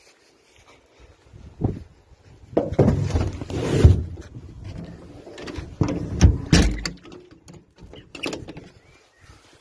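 The hinged rear box of a golf-buggy delivery vehicle being opened and handled: a knock, then a clatter and rustle of the insulated delivery bag inside, loudest about three to four seconds in, followed by a few more knocks of the box door.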